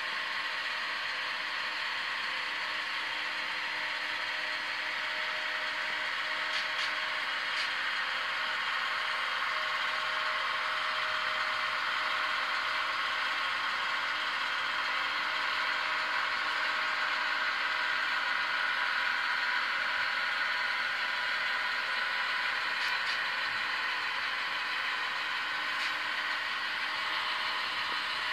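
Tsunami sound decoders in HO-scale Conrail GP38-2 model locomotives playing a steady EMD diesel engine sound through their small speakers, thin and without bass. The model train's wheels roll over the track underneath, with a few faint clicks.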